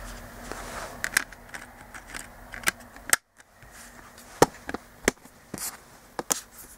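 Steelbook Blu-ray case being handled on a desk: scattered sharp clicks and taps, with a brief gap about three seconds in.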